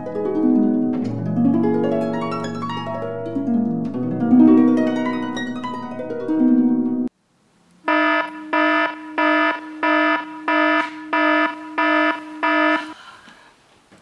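Harp music playing sweeping up-and-down arpeggios, cut off abruptly about seven seconds in. After a short pause an electronic alarm beeps eight times, evenly spaced about two-thirds of a second apart, the wake-up alarm for a sleeper.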